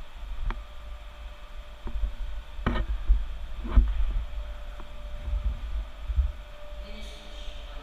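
A steady machinery hum with an uneven low rumble underneath, broken by a few sharp knocks and clicks, the loudest about four seconds in.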